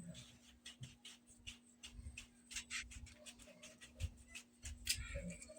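Faint, scattered clicks and rustles of hands handling PVC pipe and tape, over a steady low hum.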